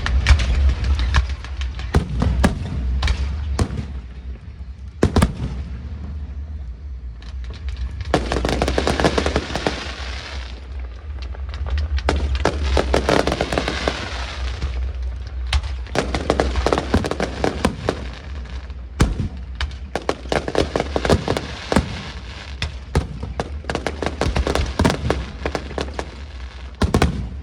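A fireworks display going off: repeated sharp bangs, with several stretches of dense crackling and hissing, over a steady low rumble.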